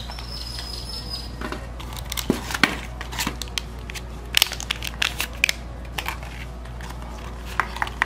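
Plastic packaging crinkling and cardboard being handled during a phone unboxing, as a USB cable in its plastic bag and the box insert are picked up and set down. The crackles and light clicks come in irregular bursts from about two seconds in.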